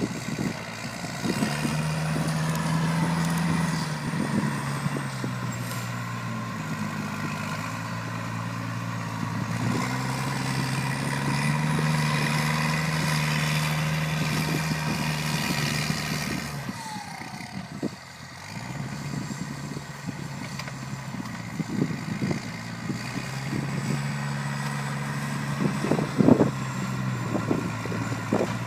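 New Holland TS115 tractor's turbocharged diesel engine working under load, with a high turbo whistle that rises and falls with the revs. About two-thirds of the way through the engine eases off and the whistle fades, then it picks up again. A few sharp knocks near the end are the loudest sounds.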